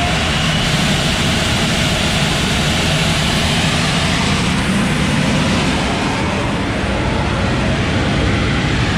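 John Deere combine running steadily: a constant loud rumbling machine noise with a rushing hiss over it.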